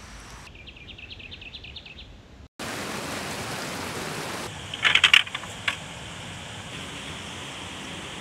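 Shallow stream rushing over boulders, a steady hiss of water that begins about two and a half seconds in, after a brief rapid high ticking. About five seconds in, a short cluster of sharp clicks rises over the water.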